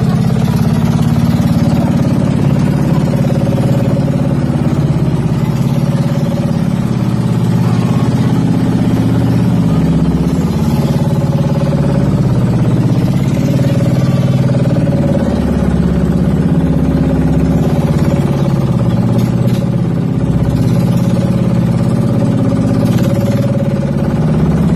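Engine of a small motorized banca running steadily at an even pitch while the boat is underway.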